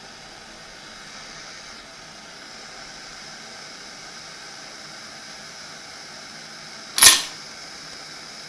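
Gas torch flame hissing steadily as it heats a brass cartridge case in an annealing machine, with one sharp click about seven seconds in.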